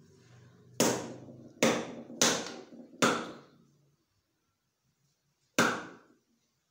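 A whole coconut struck hard against a stone floor to crack it open as a puja offering: five sharp knocks, each with a short ring. Four come in quick succession and the last follows after a pause of about two and a half seconds.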